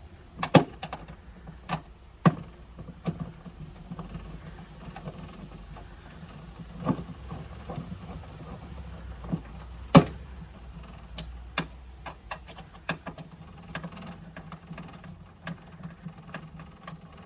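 Irregular clicks and knocks of hands and tools working on a car boot latch and its surrounding panel, the loudest knocks about half a second in and about ten seconds in.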